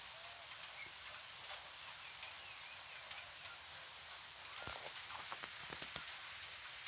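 Steady hiss of light rain, with a few faint bird chirps. From about four and a half seconds in comes a short run of soft knocks.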